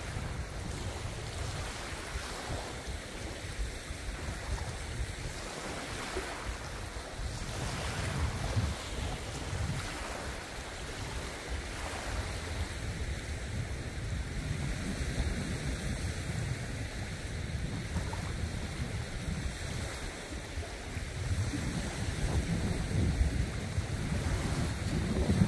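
Wind buffeting the microphone: a gusty, uneven rumble with a steady hiss of open-air noise behind it.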